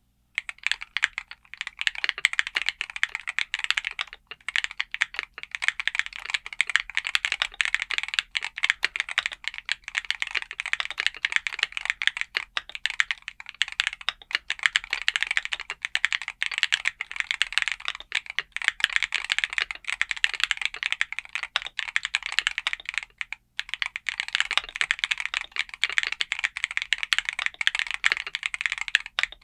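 Fast, continuous typing on an aluminium-cased Hall effect keyboard with Everglide WuKong magnetic switches and transparent keycaps, in dense clicking keystrokes with one brief pause about three-quarters of the way through.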